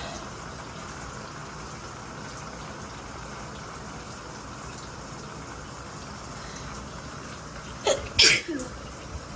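Shower water running steadily, then near the end a woman sneezes: a short sharp intake followed by one loud sneeze. It is an allergy sneeze set off by the strong scent of a body wash.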